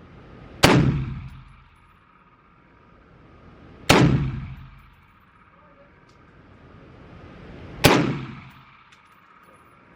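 Three single shots from an AR-15-style rifle, fired slowly about three to four seconds apart. Each crack echoes for about a second in the indoor range.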